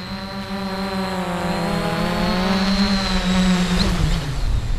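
Quadcopter's electric motors and propellers humming steadily, growing louder as it comes in close, then winding down with a falling pitch after it touches down with a light knock about four seconds in.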